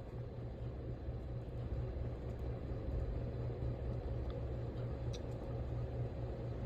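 Heritage Riviera ceiling fan running steadily on high: a low, even rumble with a faint steady hum from the motor and moving air.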